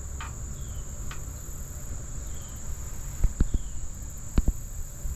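Steady, high-pitched insect chorus from the summer marsh, with faint short falling chirps every second or two over a low rumble. Two pairs of dull thumps come about three and four and a half seconds in.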